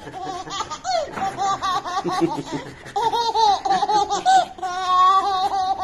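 Baby boy laughing hard in quick repeated high-pitched bursts, with one longer held squeal near the end.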